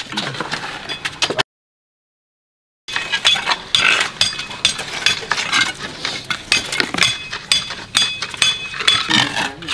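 Many sharp metallic clinks and taps in quick irregular succession, some with a brief ringing tone. The sound cuts out completely for about a second and a half, a little over a second in.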